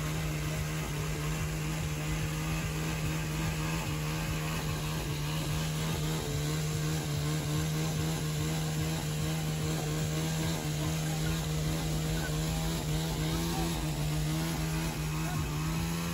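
An engine running steadily at one constant speed, a continuous even drone that holds the same pitch throughout.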